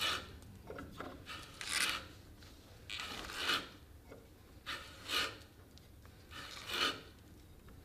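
Long hand-turned pump auger boring lengthwise into an oak trunk, its bit rasping through the wood in a stroke about every second and a half as the handle is turned.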